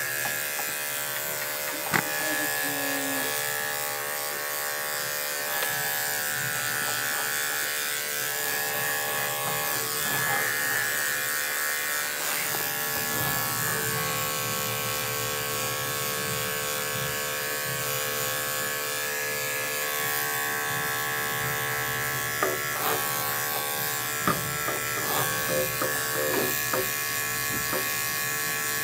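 Andis five-speed electric dog grooming clipper running steadily as it shaves down a dog's leg, a constant motor buzz. A few short clicks come in near the end.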